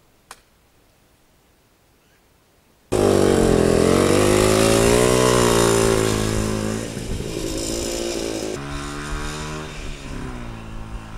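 Motorcycle engine catching suddenly about three seconds in and revving up and down, then dropping back to a lower, steadier running.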